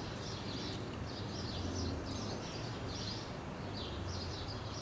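Birds chirping in a run of short high calls, about two to three a second, over a low steady hum.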